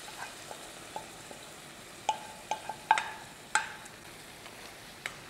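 A wooden spatula stirs soybean and potato curry in a metal pan, knocking sharply against the pan several times, each knock with a short metallic ring, mostly between about two and three and a half seconds in. Under it the curry sizzles steadily.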